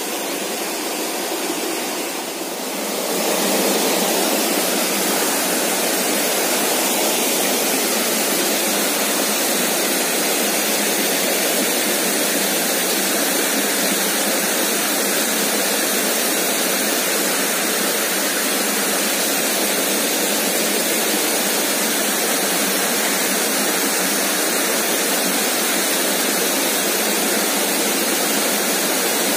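Steady rushing of a shallow forest stream running over rocks and a small cascade, stepping up in loudness about three seconds in and then holding even.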